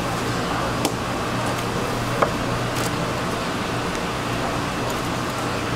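Steady fish-market background noise with a low hum, broken by two sharp clicks about one and two seconds in.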